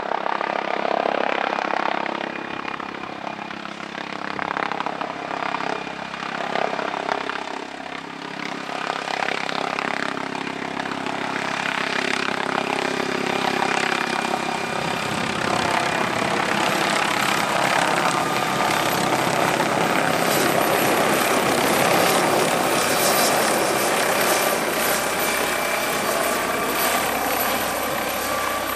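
MD 902 Explorer, a twin-turbine NOTAR helicopter, coming in to land. Its rotor and turbine noise grows fuller and louder from about halfway in, then stays steady.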